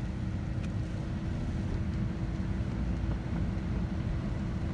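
Vehicle running, a steady low rumble with a faint constant hum.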